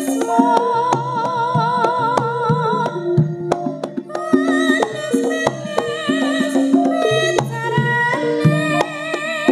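Background music: a melody with a wavering, vibrato line over steady hand-drum-like percussion.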